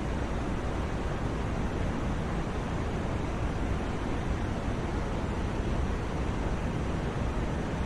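Steady white noise played for sleep: an even, unchanging rushing hiss with no pitch or rhythm, its weight in the low end.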